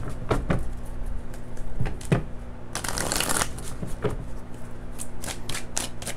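A deck of oracle cards being shuffled by hand: scattered card snaps, a longer sliding rush about halfway through, and a quick run of clicks near the end.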